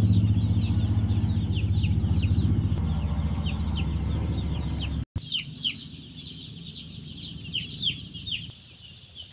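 A flock of broiler chicks peeping, a dense stream of quick, high, downward chirps. Under the first half runs a steady low motor hum that fades and stops abruptly about five seconds in, leaving only the peeping.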